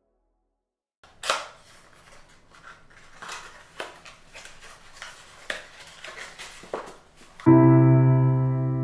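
Paper packaging rustling and crackling as hands open a paper-wrapped box, with a string of sharp crinkles. About seven and a half seconds in, piano music starts and is the loudest sound.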